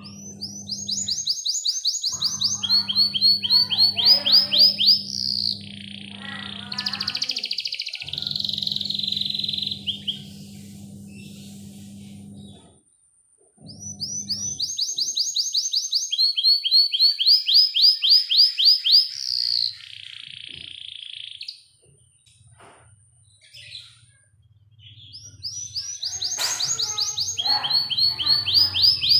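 Domestic canary singing long, rapid trilled rolls in three bouts with pauses between. Each bout steps down in pitch from one trilled phrase to the next, and the first ends in a buzzy, rattling passage.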